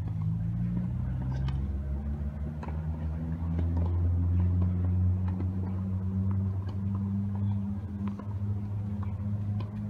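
A steady low motor hum, like an engine running at a constant speed, with a few faint scattered clicks over it.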